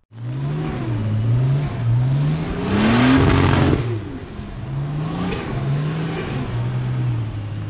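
A four-wheel-drive's engine revving hard and easing off over and over, its pitch climbing and dropping repeatedly, loudest about three seconds in.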